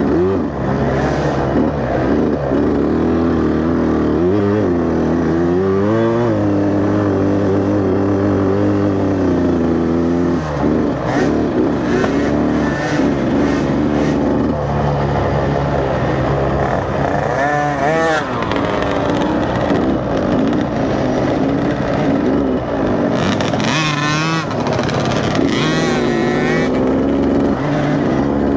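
GasGas MC 65 two-stroke dirt bike engine ridden hard on a trail, its revs climbing and dropping several times as the rider accelerates and shifts.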